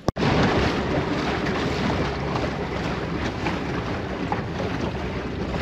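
Small boat's motor running steadily under way, with wind and water noise.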